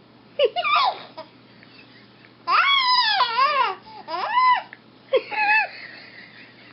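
A five-week-old baby making high-pitched squeaks and coos, four in a row with wavering pitch, the longest lasting over a second about halfway through.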